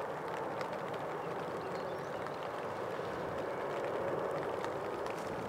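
Jet airliner climbing out after takeoff, its engines at takeoff power: a steady rush of jet noise that grows a little louder about four seconds in.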